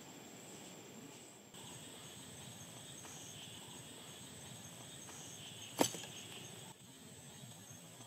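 Faint steady calling of insects in rural open country, with one sharp click almost six seconds in.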